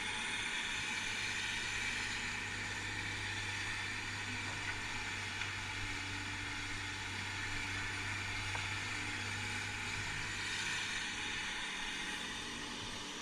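Heavy-equipment diesel engine running steadily at a constant speed, a low even hum.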